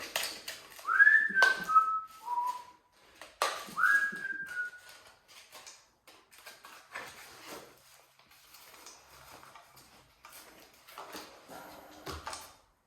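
A person whistling a short tune: a phrase that rises and then steps down over four notes, then a shorter rising phrase, with scattered clicks and knocks of things being handled.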